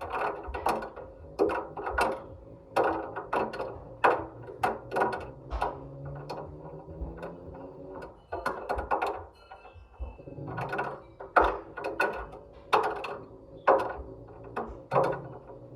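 A ball knocking and rattling around inside a turning washing machine drum: irregular clacks, several a second, over a low motor hum that comes and goes.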